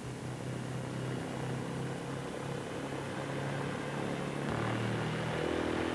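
The twin Allison V-12 engines of a Lockheed P-38 Lightning being run up with the brakes held before takeoff. The steady engine note grows a little louder and shifts in pitch about four and a half seconds in.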